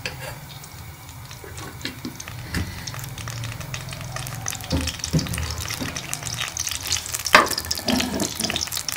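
Ghee sizzling and crackling as it heats in a metal karahi, the crackle growing louder, while a wooden spatula stirs and scrapes through it. There is a sharp knock about seven seconds in.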